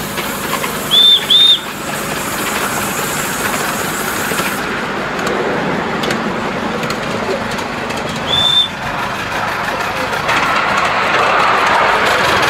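Two short, high whistle toots in quick succession, then a single toot several seconds later. Under them runs a steady rumble and hiss from the railway yard, growing a little louder near the end.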